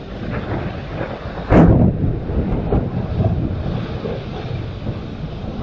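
Thunder from a nearby lightning strike: a low rumble builds, a sharp loud crack comes about one and a half seconds in, and then the thunder rolls on unevenly. It is picked up by a security camera's microphone.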